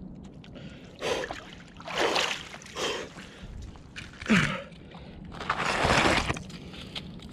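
Ragged, gasping breaths and a short falling groan about four seconds in, from a man immersed in an ice hole, with water splashing and sloshing around him as he moves: cold-shock breathing in icy water.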